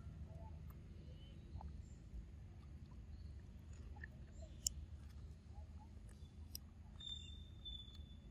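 A macaque eating a ripe mango close up: soft, wet chewing with a few sharp clicks over a low steady rumble. A thin high tone sounds briefly near the end.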